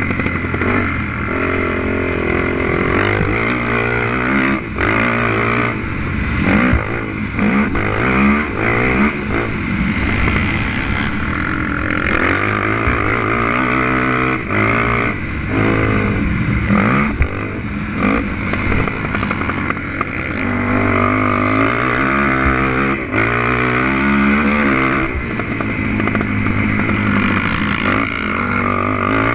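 Honda TRX450R sport quad's single-cylinder four-stroke engine being ridden hard, revving up and falling back over and over as the rider accelerates and shifts gears.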